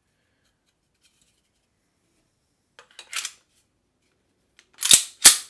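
Beretta Px4 Storm Compact 9mm pistol being handled after reassembly: a short metallic scrape about three seconds in, then two sharp, loud metal clacks about half a second apart near the end, the slide being worked by hand.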